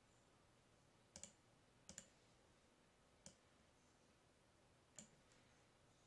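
Computer mouse clicking: about five faint, sharp clicks spread over a few seconds, the first two heard as quick double clicks, with near silence between.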